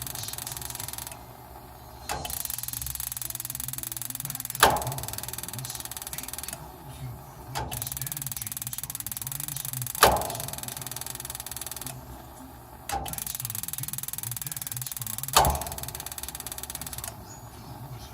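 Troubled furnace going through a repeating cycle. About every five and a half seconds there is a loud bang with a short ring. Between bangs the steady rushing noise cuts out for about a second and comes back with a click.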